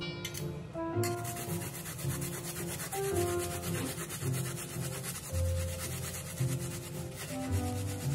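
Fast, even scraping strokes of a kitchen utensil working food, starting about a second in and stopping near the end, over background music with a melody.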